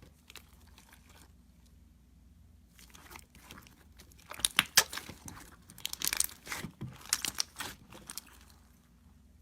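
Slime being squeezed and pressed by hand, making a run of crackling clicks and pops that starts about three seconds in, comes in clusters, and stops shortly before the end.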